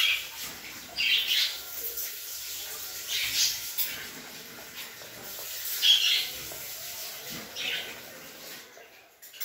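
Small plastic spoon stirring and scraping in a plastic toy pot: several short scratchy strokes at irregular intervals.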